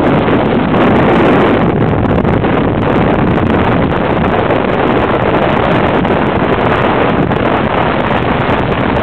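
Wind rushing over the microphone of a camera held by a passenger on a moving Yamaha FJR1300 motorcycle, steady and loud, with the motorcycle's engine and road noise under it.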